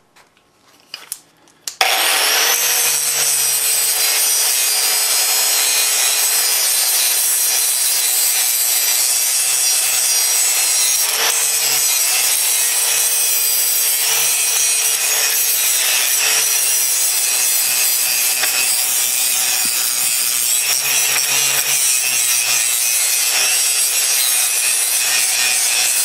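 Angle grinder with a flap disc, switched on about two seconds in and grinding a thermite-cast steel blade. It runs steadily with a constant whine over the grinding noise. There are a few light handling clicks just before it starts.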